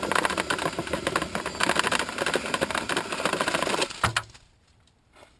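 Electric drill spinning a dryer-vent cleaning brush on its rods inside the vent duct, a loud rapid clattering that stops with a thump about four seconds in.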